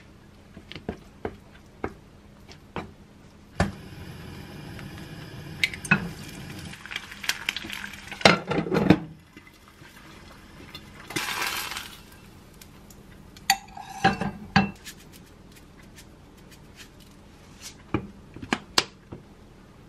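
Kitchen utensil and cookware clatter: a spoon clinking and scraping on a ceramic dish, and a frying pan and its glass lid clanking with a brief ringing rattle. A few light taps come near the end.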